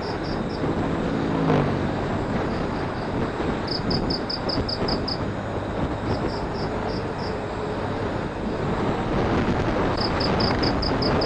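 Motorcycle riding along: engine and road and wind noise on a phone microphone. A rapid high pulsing, about four to five pulses a second, comes and goes several times, and a pitched hum swells briefly about a second and a half in.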